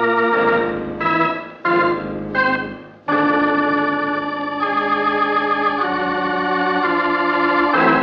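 Organ music bridge: a held chord, three short stabs about a second apart, then a long sustained chord that shifts pitch a few times before dying away near the end. It is a dramatic musical cue marking a scene change in a radio drama.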